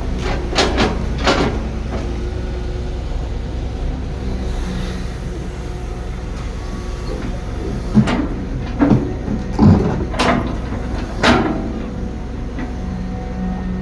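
Heavy earthmoving machinery's diesel engine running steadily, with sharp metallic clanks and knocks: two near the start, then a cluster of several more past the middle.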